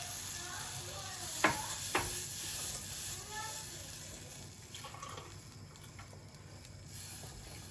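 Silicone spatula stirring milk into a hot butter-and-flour roux in a saucepan, with a soft sizzle that slowly fades. Two sharp knocks come about a second and a half and two seconds in.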